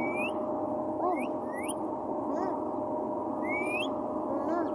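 Green parrot giving about five short rising whistles over the steady road noise and hum of a car interior.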